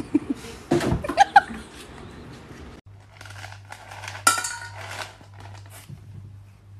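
Pieces of dog food dropped from a cup into an empty stainless steel dog bowl: a scatter of light pings, with one loud ringing clink about four seconds in. Before that come a few short cries and knocks.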